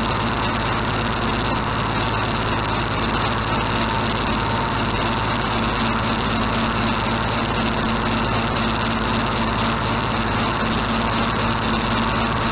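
Engine running at a steady speed, with a constant hum and no change in pace.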